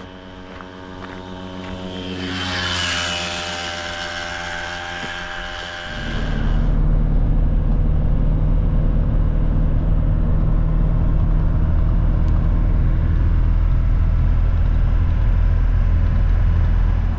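A motor vehicle's engine approaching and passing close by on the road, swelling to its loudest about three seconds in. At about six seconds it switches to the steady, loud, low drone of a van's engine and road noise heard from inside the cab while driving.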